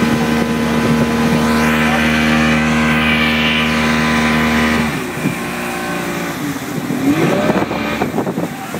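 Motorboat engine towing a banana boat, running with a steady drone, then dropping away suddenly about halfway through as the boat slows.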